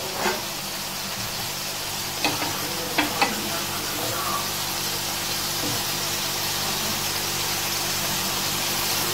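Minced-meat patties sizzling in hot oil in a nonstick frying pan, getting slightly louder, with a few sharp knocks of a wooden spatula against the pan in the first three seconds as the patties are turned.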